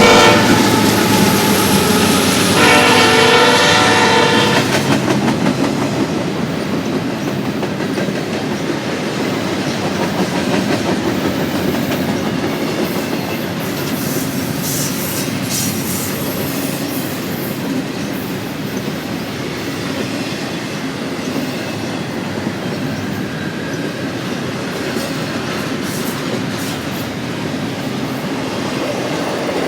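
BNSF freight train's locomotive horn, a chord blast fading just after the start and another from about two and a half to four and a half seconds in, then the steady rumble and clickety-clack of the intermodal cars rolling past.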